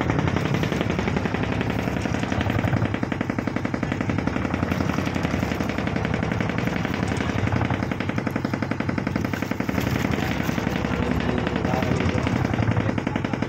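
Fishing boat's engine running, a loud, rapid, even knocking beat that holds steady throughout.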